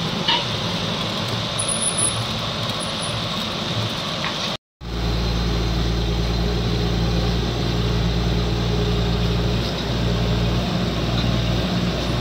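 A steady noisy hiss, then a brief drop-out about four and a half seconds in. After it, the engine of a truck-mounted borewell drilling rig runs steadily at idle with a low, even hum.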